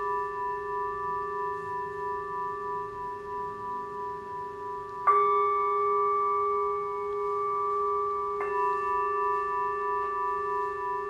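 Tibetan singing bowls ringing, several long held tones with a slow wavering beat. A bowl is struck about halfway through, and another a few seconds later, each strike bringing in a new set of ringing tones.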